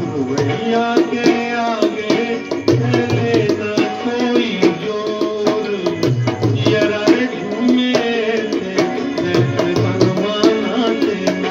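Dholak played by hand in a steady folk rhythm, deep bass strokes alternating with sharp slaps on the treble head, under a gliding instrumental melody line.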